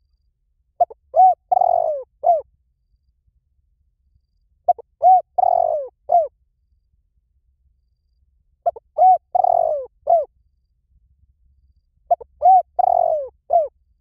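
Spotted dove cooing: four matching phrases about four seconds apart, each two or three short coos, a longer coo that falls in pitch, and a short closing coo.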